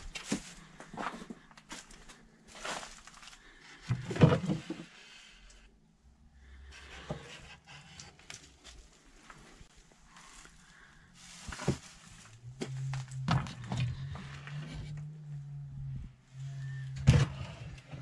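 Scattered knocks, thuds and footsteps of someone moving about a small room with old wooden fittings, with a louder knock about four seconds in and another near the end as a wooden cupboard door is pulled open. A low steady hum comes in about two-thirds of the way through.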